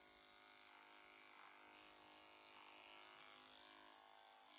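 Electric horse clippers running with a faint, steady hum as they clip the hair under a horse's jaw.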